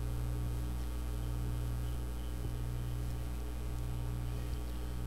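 Steady electrical mains hum with a light hiss, picked up in the microphone's recording chain.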